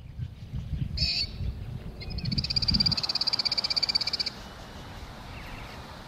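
An animal's fast rattling trill lasting about two seconds, after a short high call about a second in, over a low rumble.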